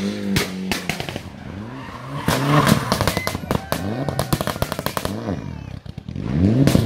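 Mitsubishi Lancer Evolution rally car's engine revving hard and dropping back several times as it takes a tight corner. Rapid sharp pops and crackles from the exhaust run through it.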